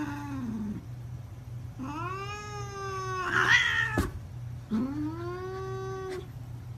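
A cat meowing: a short falling meow at the start, then two long, drawn-out meows, each rising at first and then held. Between the two long meows there is a single sharp click, over a low steady hum.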